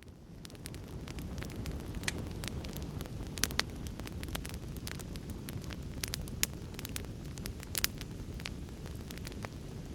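Fire crackling: a steady low rush of flames with irregular sharp pops and snaps scattered through it, fading in over about the first second.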